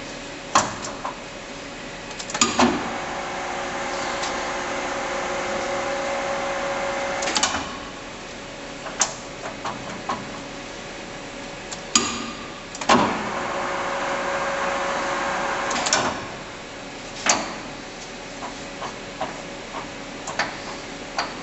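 Bridgeport Romi EZ-Path CNC lathe spindle running with a steady hum twice, each time for several seconds, then spinning down. Sharp mechanical clicks and knocks come in between as the machine is stopped and worked through its spindle speeds and gear ranges.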